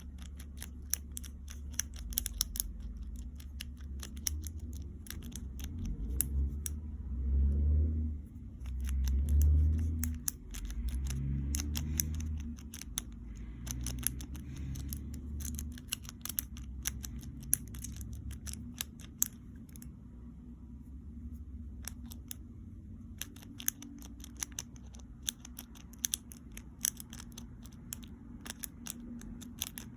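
Lock pick and tension wrench working the pin-tumbler keyway of a Master Lock No. 1 padlock: many small, irregular metallic clicks and scrapes as the pins are worked, over a low steady hum. Duller handling rumbles come between about 6 and 12 seconds in.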